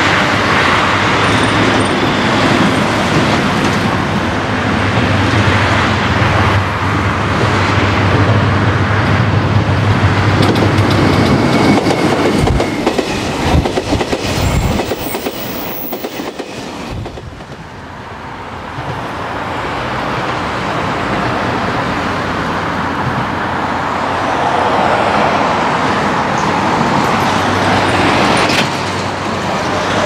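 The Seven Stars in Kyushu cruise train passes close by, hauled by its DF200 diesel-electric locomotive. The locomotive's engine hums steadily as it approaches, then the coaches' wheels clack over the rail joints. The train sound fades about seventeen seconds in, and road traffic noise takes over.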